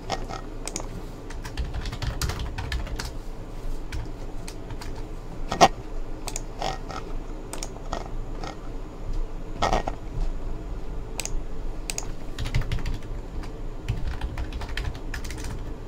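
Computer keyboard being typed on: short runs of key clicks, with two louder clicks about six and ten seconds in.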